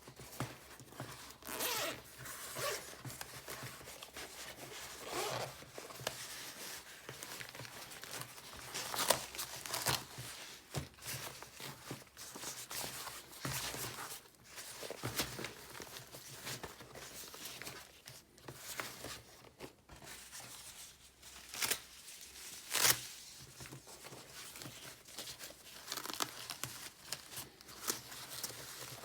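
Packaging and a small case being handled by hand: irregular rustling and tearing with scattered sharp clicks and taps, two of them louder, about nine seconds in and again near twenty-three seconds.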